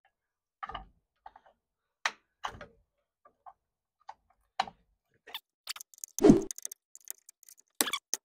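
Scattered clicks and taps as the horn button and center hub of a Grant GT aftermarket steering wheel are handled and pried at to work them off, with one louder knock a little past six seconds in.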